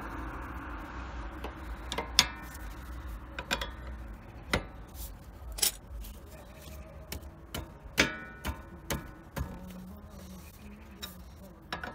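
Open-end wrench clicking and clinking against a nut on a car's tie rod as it is worked: about a dozen irregular sharp metallic clicks, a few ringing briefly.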